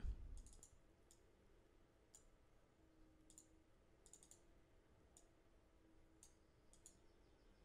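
Near silence with faint, scattered computer mouse clicks, about ten sharp ticks spread unevenly, some in quick pairs.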